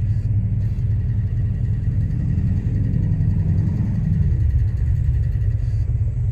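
Infiniti G35's 3.5-litre V6 idling during an idle air volume relearn; about four seconds in, the idle drops way down. The idle seems kind of rough, which the owner takes for a misfire.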